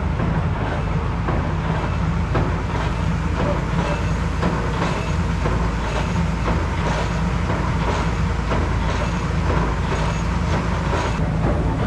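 Tractor engine running steadily at a constant speed, with scattered rattles and knocks over it.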